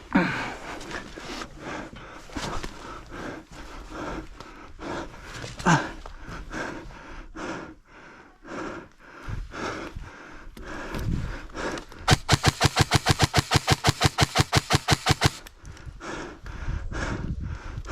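A player's heavy breathing and movement, then a burst of about twenty evenly spaced shots over roughly three seconds, typical of an airsoft rifle firing on full auto.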